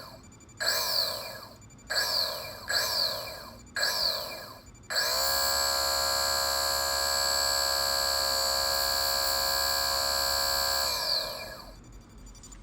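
Kawasaki ZX-12R's left radiator cooling fan motor, the one being checked for an abnormal noise, switched on in four short blips that each spin up and coast down. It is then run steadily for about six seconds as a whine, and cut off about eleven seconds in to wind down.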